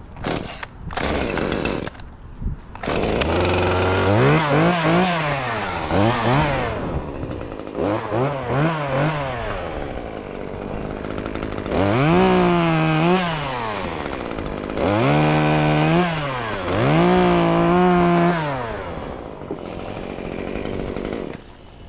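Two-stroke chainsaw engine, with short bursts in the first few seconds, then revved up to high speed and back down about five times, as when cutting branches.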